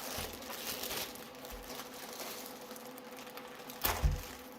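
Faint rustling of packaging as a keyboard is lifted out of its box housing, with soft bumps and a sharper double knock a little before the end.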